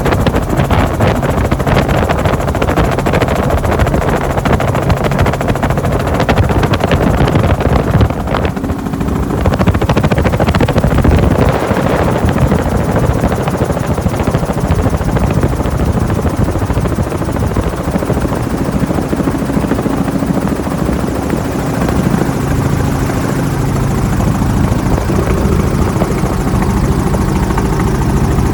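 Helicopter in flight: continuous loud rotor and engine noise with a steady low hum.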